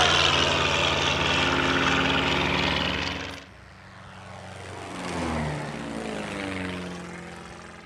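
Single-engine propeller light aircraft flying low past, engine and propeller note sliding down in pitch as it goes by. The sound cuts off abruptly about three and a half seconds in, and a second aircraft then swells past with its note falling before fading away.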